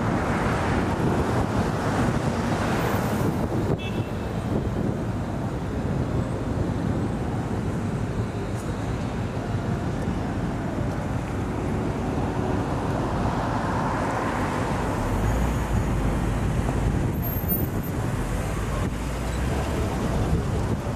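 Steady road noise from a car driving through town traffic: a rushing sound of tyres and engine. A passing car swells the noise at the start and again about two-thirds through, and a deeper rumble comes in for a few seconds after that.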